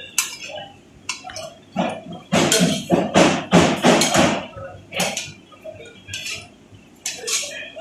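Metal spatula clanking and scraping on a flat-top steel griddle as omelettes are lifted off it, a quick run of strokes in the middle with scattered clicks either side.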